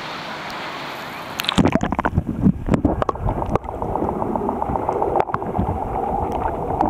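Sea water washing at the surface, then about one and a half seconds in the camera goes under and the sound turns muffled: underwater gurgling and bubbling with short knocks of water against the camera.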